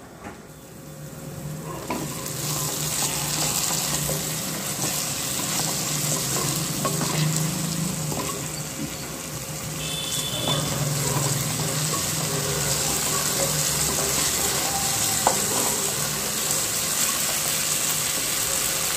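Chopped onion and tomato masala sizzling in oil in a non-stick pan, stirred and scraped with a wooden spatula. The sizzling comes in about two seconds in and then runs steadily.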